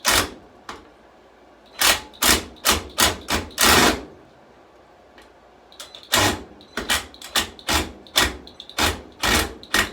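Power drill driving a screw into wood in short trigger bursts, about two or three a second, with a pause of about two seconds in the middle. The bit is slipping in the screw head and stripping it out.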